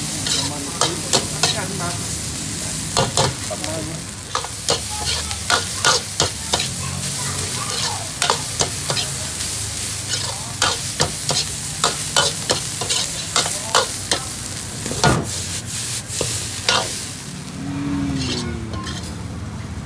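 Food sizzling in hot oil while being stirred, with a metal utensil clinking and scraping against the pan at irregular moments. The sizzling dies down near the end.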